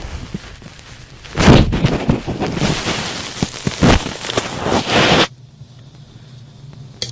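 Thick cotton swabs rubbed against an ASMR microphone: scattered soft clicks, then loud, dense crackly scratching from about a second and a half in that cuts off suddenly about five seconds in, leaving a low hum.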